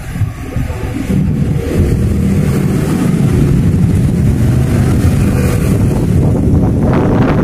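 Steady low engine rumble of a vehicle running nearby, building about a second in and holding.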